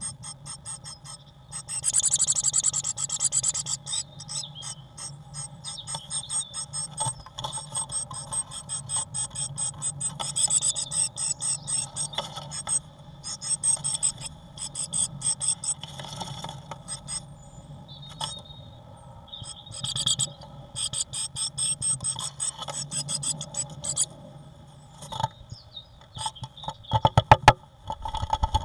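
Great tit scratching and pecking on the bare wooden floor inside a nest box, rapid scratchy clicks coming in spurts: the nesting wriggle that comes before nest building. Louder scrabbling and knocks near the end as the bird climbs to the entrance hole, over a steady low hum.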